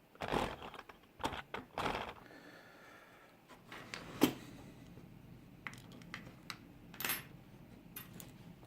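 Scattered metallic clicks, taps and scrapes of a small lock and its metal parts being handled and worked out of a holder shell, about half a dozen separate sounds.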